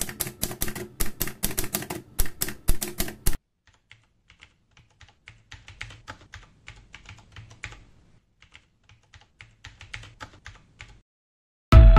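Manual typewriter keys striking in quick, loud clacks, then, from about three and a half seconds in, much quieter, faster clicking of typing on a computer keyboard.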